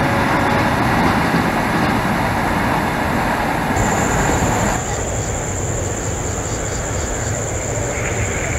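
Passenger train running on the rails, with wheels rumbling and clattering as the coaches pass and draw away. About five seconds in, the sound drops to a quieter, steady rumble of an approaching train. A steady high-pitched whine runs alongside from about four seconds in.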